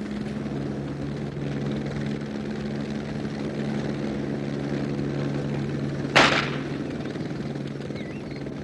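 Helicopter's steady engine and rotor hum, heard from its open doorway, with a single sharp crack about six seconds in as the dart gun is fired at the running white rhino.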